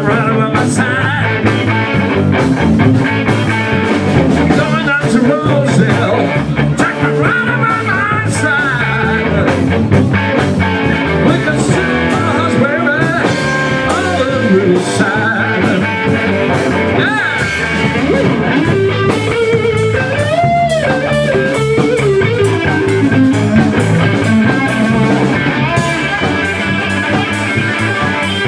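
Live rock band playing in a room: electric guitars and bass guitar over a drum kit, with a lead line of bent notes that swoops up and down several times.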